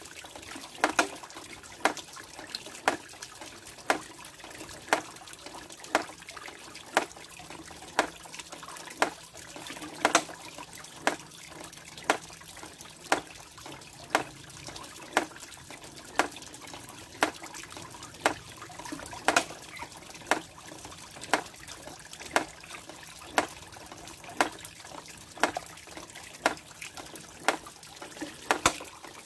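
Water trickling steadily through a miniature waterfall made of PVC pipe, with a sharp knock about once a second from its water-driven mortar and pestle.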